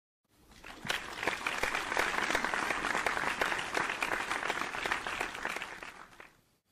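Crowd applause, many hands clapping, fading in at the start and fading out near the end.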